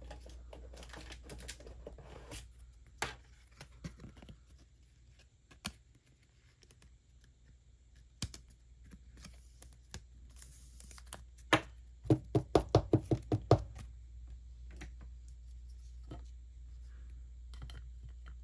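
A trading card being slid into a rigid plastic toploader and the holder being handled, giving scattered plastic clicks and soft rustles. About twelve seconds in there is a quick run of about eight sharp taps, the loudest sounds here.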